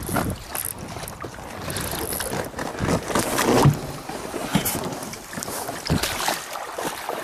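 Shallow river water splashing and sloshing around an inflatable boat as a man wades beside it, with irregular knocks and scuffs.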